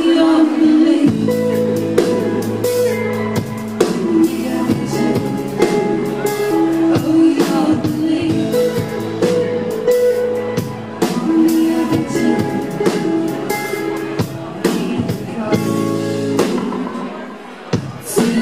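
A band playing a song live, with drum kit and guitar and a voice singing at times; the music drops back briefly near the end before coming in full again.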